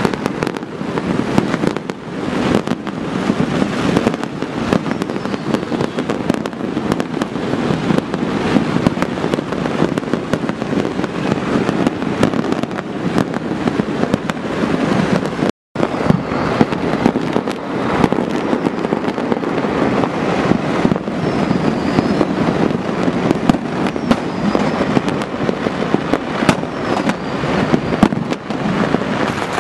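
Many fireworks and firecrackers going off at once: a dense, continuous stream of cracks and bangs. The sound cuts out for a split second about halfway through.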